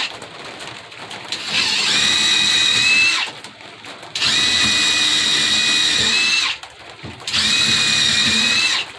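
Power drill boring pilot holes out all the way through a workbench top, one hole after another. It makes three steady whining runs of about two seconds each, with short pauses between them.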